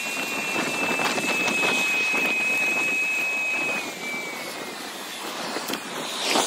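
Street traffic and road noise heard from a moving bicycle: a steady hiss of wind and tyres with light rattles. A steady high tone slides lower about four seconds in, and there is a short loud knock at the very end.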